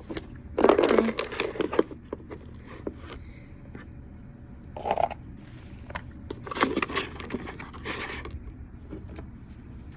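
Toys being handled and moved about on a hard surface: light clicks, taps and scrapes in clusters about a second in, around five seconds, and again from about six and a half to eight seconds.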